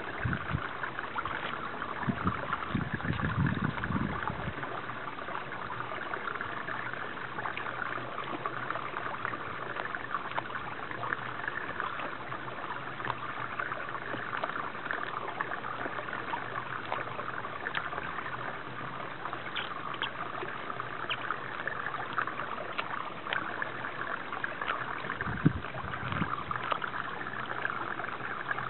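Steady rush of running water, like a small stream or channel, with faint scattered clicks as a Shiba Inu chews a green bean pod. A couple of brief low rumbles about two seconds in and again near the end.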